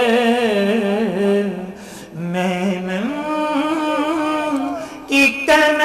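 A male voice singing a naat, drawing out long wordless melismatic notes that slide up and down in pitch. There is a brief break about two seconds in.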